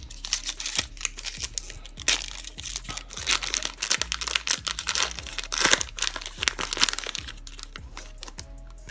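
Foil trading-card pack wrapper being torn open and crinkled by hand, a dense crackling with many small clicks that is busiest through the middle and thins out near the end as the cards slide out.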